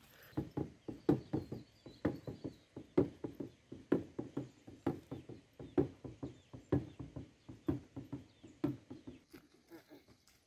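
Dhyangro, a shaman's frame drum, beaten with a stick in a steady rhythm: an accented stroke about once a second with lighter strokes between. The drumhead has gone damp, which the players say keeps it from sounding properly.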